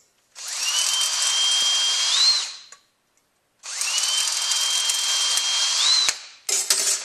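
Cordless drill with a small number 67 bit drilling holes through an automatic transmission's steel separator plate for a shift kit: two runs of a couple of seconds each, about a second apart, one per hole. Each has a high whine that rises as the drill spins up, holds steady, then climbs once more just before it stops. A shorter burst of noise follows near the end.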